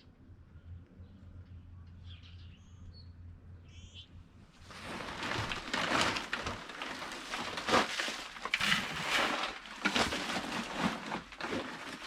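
Faint bird chirps over a low hum. About five seconds in, a run of loud, rough, irregular rustling and scraping begins and carries on.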